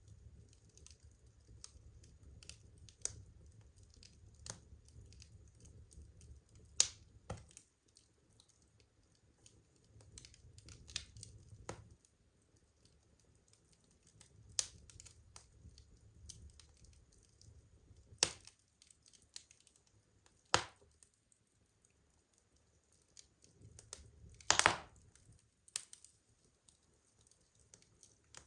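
Wood fire crackling: irregular small pops and snaps with a few louder sharp cracks, the loudest about 24 seconds in, over a faint low rumble of the flames that comes and goes.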